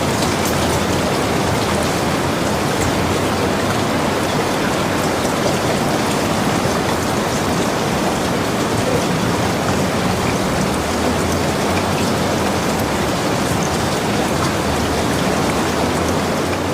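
Steady heavy rain falling, a constant hiss with fine droplet patter.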